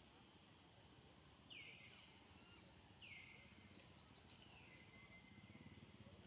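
Faint outdoor background with an animal's high call repeated three times, about a second and a half apart, each call sliding down in pitch and then levelling off.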